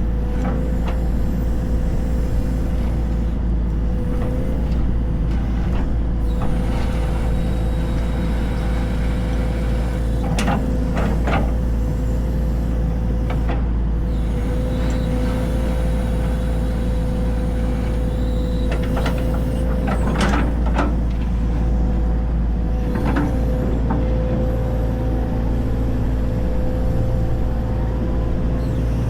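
Heavy diesel construction machinery, such as an excavator or dump truck, running steadily with a deep engine drone and a constant whine. Brief sharp noises break through a few times: a pair about ten seconds in, a cluster about twenty seconds in, and one more a little later.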